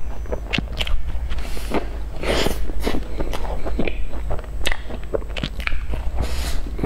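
Close-miked eating of a cream-filled bun with a crumbly sugar crust: biting and chewing, with many small wet mouth clicks and smacks and a few short crunches of the crust.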